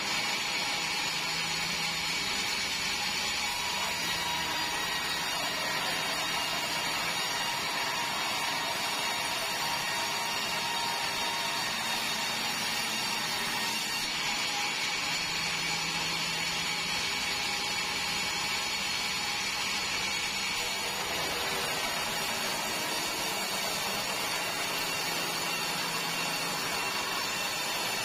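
Band sawmill running steadily: machine noise with a constant high whine, unchanging throughout.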